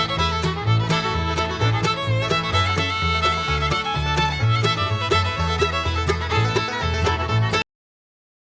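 Upbeat bluegrass-style music with fiddle and a bouncing bass line over a steady beat; it cuts off suddenly near the end.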